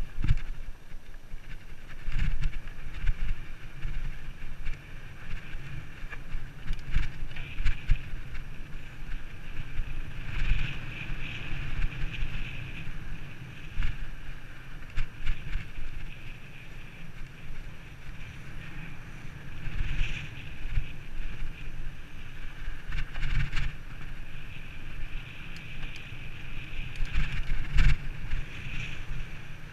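Wind buffeting the microphone of an action camera moving fast over a rough sandy trail, with frequent thumps and rattles as the camera jolts over bumps, the hardest near the end.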